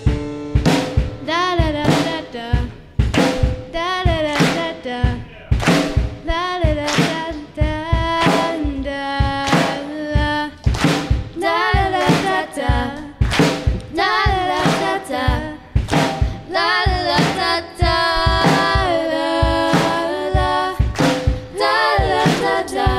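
Live band playing a song: a drum kit keeps a steady beat under a girl's singing voice, with electric guitar and upright bass.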